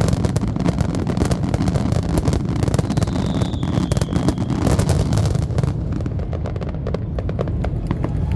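Aerial fireworks going off, a dense rapid crackle over a steady deep rumble, thinning to scattered cracks after about five seconds. A faint high whistle sounds briefly around three seconds in.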